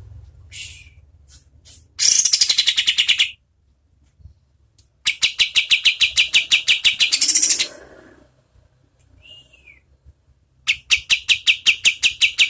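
Kapas tembak songbird singing its rapid-fire "shooting" song: three long trills of fast evenly repeated notes, with a couple of short single calls in the gaps.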